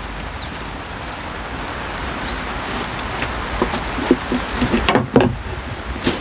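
Steady rain pattering on the pond's surface, with several short splashes from about three and a half seconds in, the loudest near the end, as a large hooked crucian carp thrashes at the landing net.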